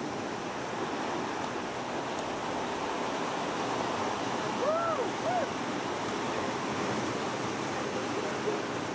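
Surf washing onto a sandy beach: a steady rush of small breaking waves and foam. About halfway through, a short cry cuts in, rising and falling twice.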